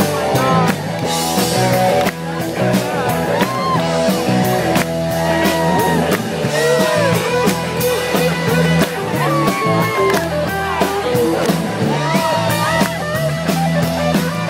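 Rock music from a live band: drums keep a steady beat under electric guitar lines.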